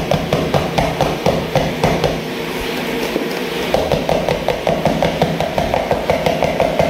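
A small pack of Nestlé cream tapped over and over, about four to five knocks a second, to shake the last of the cream out into a plastic tub; the knocking eases for a second or so in the middle.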